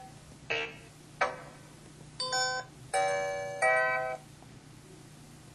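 Mobile phone sound effects played through the handset's small speaker: two short sudden effect sounds, then three brief electronic chime tones in quick succession, the last ending about four seconds in.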